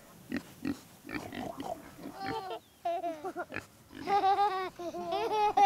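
Pigs oinking: short grunts at first, then higher, wavering squeals from about two seconds in.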